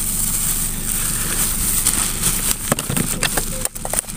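Cloth and plastic bags rustling and knocking as hands rummage through a motorcycle top case, with a cluster of sharper handling sounds in the second half. Underneath, a steady engine idles.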